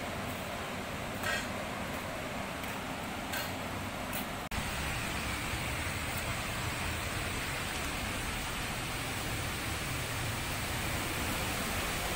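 Steady rushing of the Curug Cimarinjung waterfall. It is fainter at first, then louder and fuller after a cut about four and a half seconds in.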